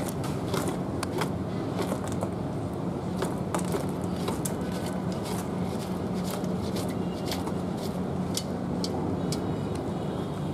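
Cooked freshwater crabs and sauce slide from a metal pot onto a large aluminium tray, with scattered sharp clicks and scrapes of shells and pot on metal, over a steady low hum.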